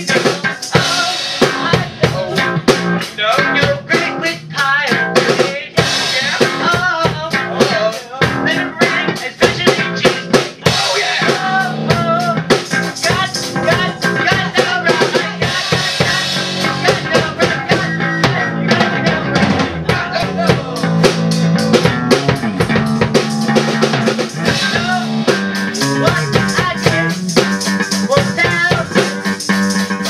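Amateur rock band jamming: a Pearl drum kit played busily with snare, bass drum and cymbal hits, with electric guitar underneath.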